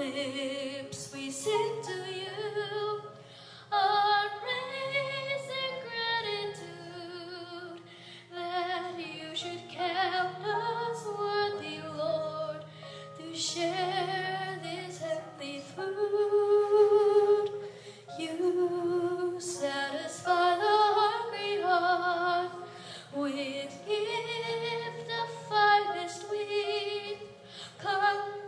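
A young girl sings a hymn solo, with a wavering vibrato on held notes, over a steady, low chordal accompaniment.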